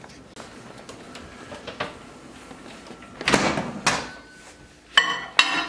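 Over-the-range microwave door opened and a glass food-storage container handled and set inside: two loud clunks about three seconds in, then a sharp click about a second later.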